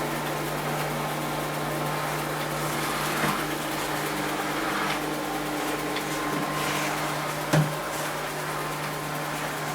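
Robot vacuum cleaner running with a steady motor hum, with a short knock about three quarters of the way through and a fainter one earlier.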